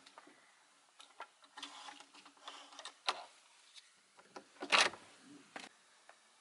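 A scattered series of light clicks and taps, with one louder clatter a little before the end.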